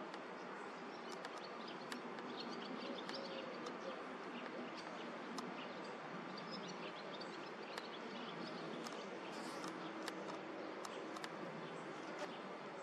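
Steady outdoor background noise with faint, scattered bird chirps and occasional short sharp clicks.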